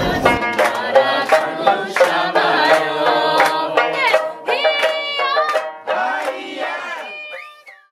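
Background music: a pitched melody with sliding notes over regular percussion strokes, fading out near the end.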